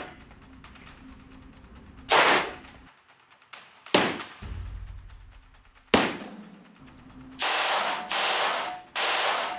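American-made Ingram MAC-10 submachine gun in 9mm fired on full auto, with the reports echoing off the walls of the indoor range. There is a short burst about two seconds in and two short sharp reports a couple of seconds apart. Near the end come three back-to-back bursts of about half a second each.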